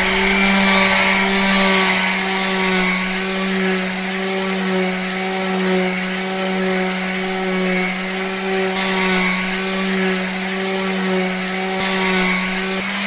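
Electric disc sander running steadily, its motor giving a constant whine while wood is ground against the spinning disc with a continuous rasp.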